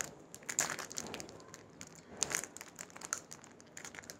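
Plastic ice-cream wrapper crinkling as it is bitten and torn open by hand, in irregular crackles that are loudest about half a second in and again a little after two seconds.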